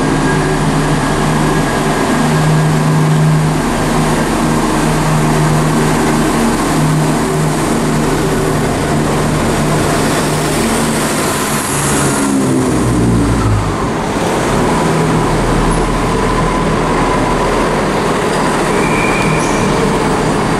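Class 168 diesel multiple unit pulling away from the platform, its underfloor diesel engines working under power as it accelerates past. About twelve seconds in, the engine note steps down in pitch.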